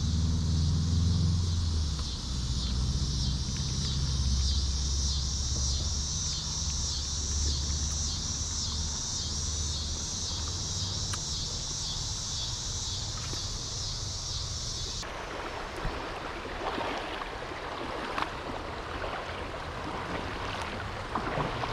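Insects chirring in a steady pulsing chorus over a low rumble; about two-thirds of the way through it cuts off abruptly and gives way to a steady rushing noise.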